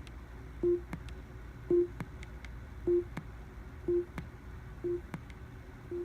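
Amazon Echo Show's built-in speaker playing a short low volume-change tone about once a second, each tone bracketed by a sharp pop. The pops are a defect that the owner says comes from the internal audio amplifier switching on and off, and that has been getting louder.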